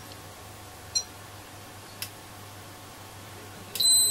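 ESR meter beeping as it tests a capacitor: a short faint click and chirp about a second in, then a loud, steady high-pitched beep near the end, briefly broken and resumed.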